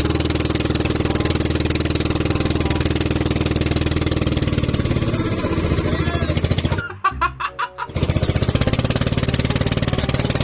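Small engine of a bangka outrigger boat running steadily at close range with a rapid, even chug. About seven seconds in it drops out for about a second, then runs on.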